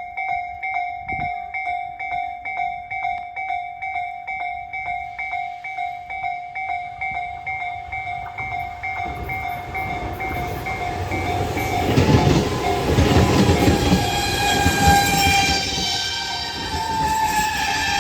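Japanese level-crossing warning bell ringing in a steady rapid beat, about two and a half strikes a second, as a Tobu 200 series limited-express train approaches. The train's rumble builds from about nine seconds and is loudest as it passes the crossing, with wheels clattering over rail joints while the bell keeps ringing underneath.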